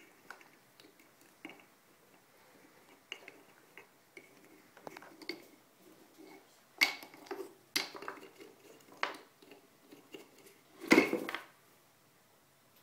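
African grey parrot pulling wooden rings off the pegs of a stacking toy: scattered wooden clicks and knocks, with one louder clatter near the end as the toy is knocked over.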